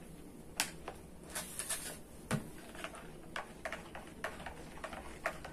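Plastic spoon clicking and scraping against the inside of a plastic measuring jug while a thick liquid is stirred, in light irregular ticks. One duller knock comes a little over two seconds in.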